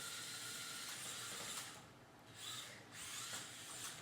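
Small electric drive motors of an Air Hogs Super Soft Stunt Shot remote-control car whirring at a steady high pitch. About halfway through the motor noise cuts out, then comes back in short spurts.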